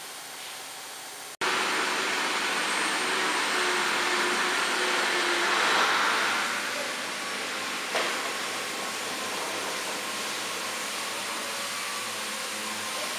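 JCUT-1330 CNC wood router running, its spindle and dust-collector blower making a loud, steady rushing noise with a faint steady whine. It starts abruptly about a second in after a quieter hiss, swells a little around six seconds, and has a single click about eight seconds in.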